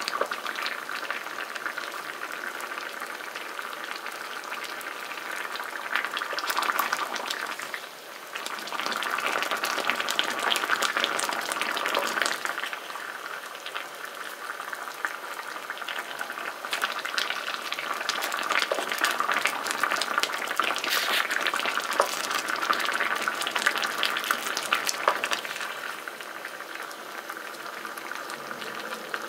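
Thick, red tteokbokki sauce of gochujang and chilli simmering around whole rice cakes in an electric pan, bubbling with many small pops. At times a wooden spatula stirs and scrapes through it.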